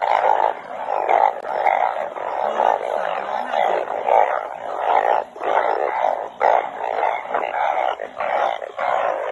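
Dense chorus of banded bullfrogs (Asian painted frogs) calling, many short calls overlapping without a break. Males call like this in breeding choruses after heavy rain.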